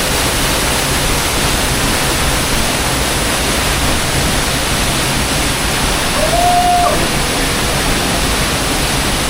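Waterfall pouring: a steady, dense rush of falling water.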